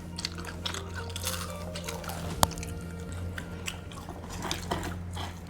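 A person chewing crunchy batter-fried cassava, with crisp crackles and clicks from the bite and the sharpest crunch about halfway through, over a steady low hum.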